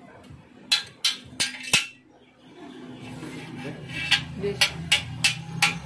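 Sharp metallic clinks of a steel tool against the pivot of a motorcycle swingarm while its new suspension bush is fitted: four clinks in the first two seconds, then a quicker run of about five near the end.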